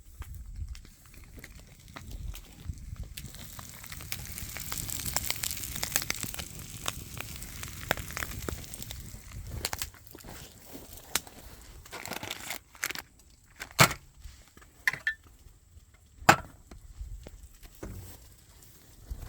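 Crackling and crunching noise with scattered sharp knocks and clicks, the loudest two knocks near the end.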